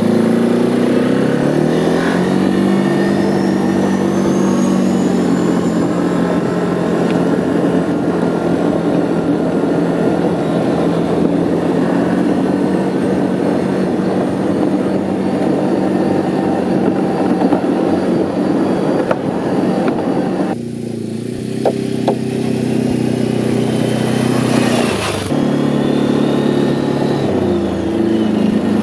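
Can-Am 450 quad's single-cylinder engine running under way, revving up at the start and then holding a steady pitch, with wind and trail noise rushing over it. It eases off about twenty seconds in, then picks up again near the end.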